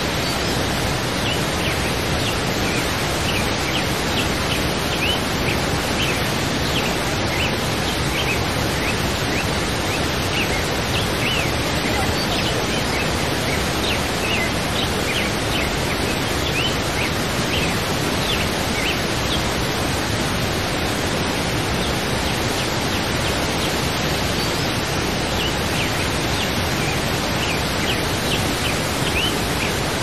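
Waterfall rushing steadily, with birds chirping in many short, high calls scattered throughout.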